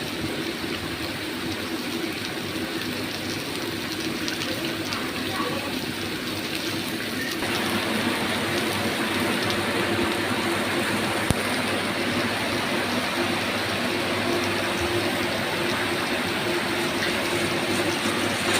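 A vegetable stir-fry of carrot, cabbage and long beans with added water and sauces, sizzling and bubbling in a pan as a steady hiss that grows louder about seven seconds in.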